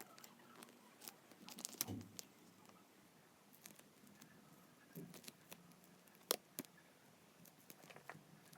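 Faint, scattered clicks and brief rustles of double-sided tape and a phone charging cable being handled as the tape is wrapped around the cable. The sharpest click comes a little past the middle.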